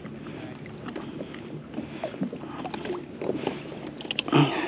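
Water splashing and small clicks and knocks as a fish is handled over the side of a plastic kayak and clipped onto a stringer, with a louder burst of clicks and a knock near the end.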